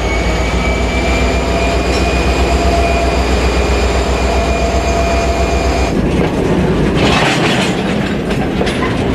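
Diesel-electric freight train rolling on the rails as it pulls away under power. A deep rumble runs under a steady high-pitched whine, which cuts off about six seconds in and leaves rougher wheel-and-rail noise.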